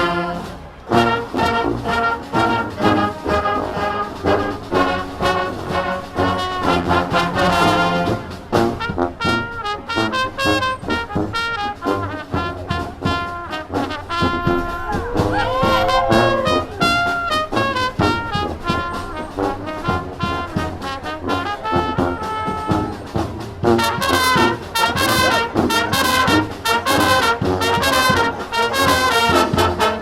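Street marching band playing an instrumental passage, with trumpets and trombones over a steady drum beat. A sliding, bending note comes about halfway through, and the band gets fuller and brighter about three-quarters of the way in.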